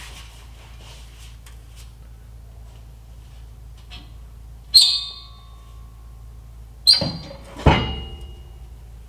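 Three sharp metal-on-metal clanks, each with a short ring: one about halfway through, then two close together near the end. The source is the Ford 6.7 PowerStroke's steel exhaust flange and diesel particulate filter being worked off their studs.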